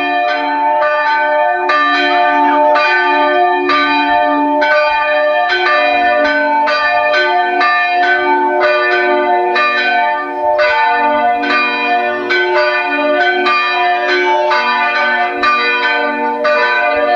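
Several church bells pealing, their strokes overlapping at about two to three a second and the tones ringing on between strikes.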